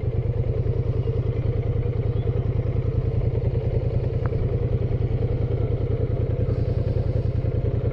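Engine of a moving vehicle running steadily, a low rapid even pulse.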